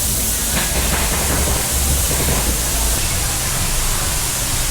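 Steady loud hiss of factory background noise, with irregular low rumble about half a second to two and a half seconds in.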